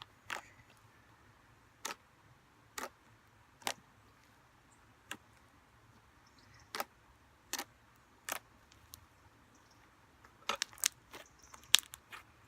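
Slime being mixed and kneaded by hand, giving sharp, sticky clicks and snaps at irregular intervals about a second apart, coming faster near the end.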